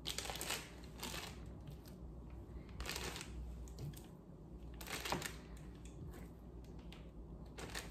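Faint, scattered rustles and clicks as kitchen tongs lift raw chicken thighs into a plastic zip-top bag, the bag crinkling as it is handled.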